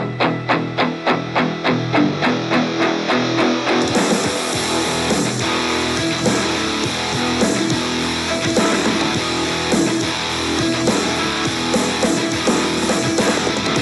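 Background guitar music: a fast, evenly repeated plucked figure that fills out into a fuller band sound about four seconds in.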